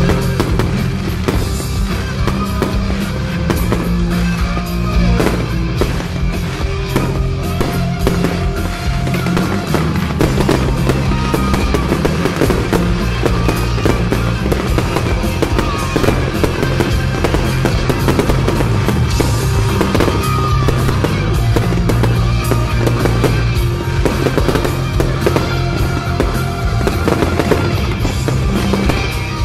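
Fireworks bursting and crackling over loud show music, with many sharp bangs throughout.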